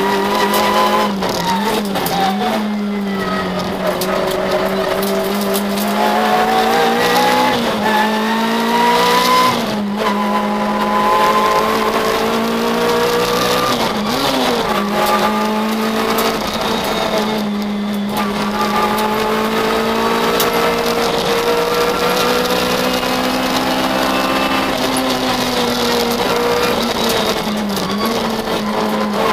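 Citroën Saxo VTS rally car's 1.6-litre four-cylinder engine heard from inside the cabin at stage speed, its pitch climbing as it revs and dropping back several times as the driver lifts and shifts, over road and tyre noise.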